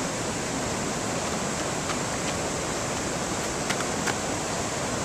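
Steady rush of water spilling over a small stone spillway into a canal.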